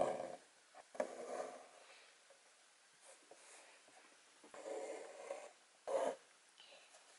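Embroidery thread pulled through taut fabric stretched in an embroidery hoop, a rasping draw of the thread through the cloth. There are four pulls: one at the start, one about a second in, a longer one around four and a half seconds in, and a short one near six seconds.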